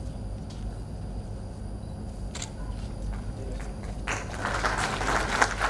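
A steady low hum with a few light clicks; about four seconds in, an audience begins applauding.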